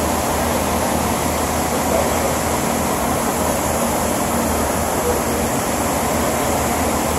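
Steady background noise of a truck repair shop: an even rush with a low hum underneath, unchanging throughout.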